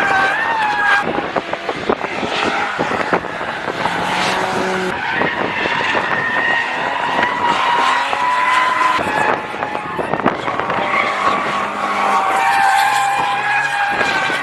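Ford cars sliding on a race circuit: tyres squealing in long wavering tones over engine noise, with wind buffeting the microphone.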